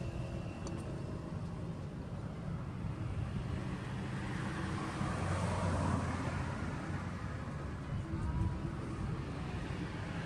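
Low, steady engine drone that swells about halfway through, with a noisy outdoor background.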